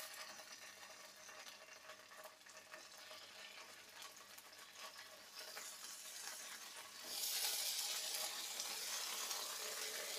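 Paneer (cottage cheese) slices sizzling in hot oil in a nonstick frying pan, a steady frying hiss with small crackles that grows louder about seven seconds in.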